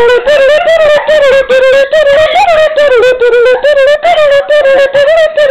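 A person loudly singing a lively, lilting jig-style tune for the dancers to dance to.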